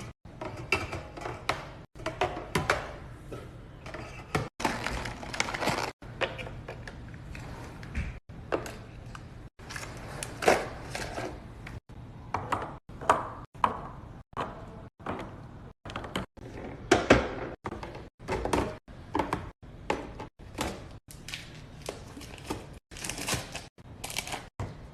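Kitchen containers, lids and packages being handled, set down and knocked together during fridge and pantry restocking: a busy string of thunks, taps and clatters. It is chopped into short snippets, with the sound cutting off abruptly every second or so.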